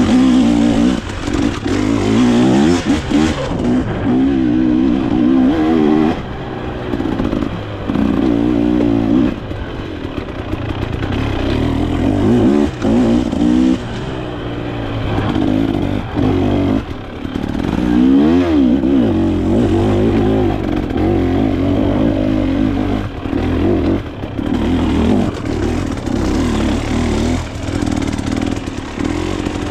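Off-road dirt bike engine being ridden hard, its pitch rising and falling as the throttle opens and closes, with frequent short drops where the throttle is chopped or a gear is changed.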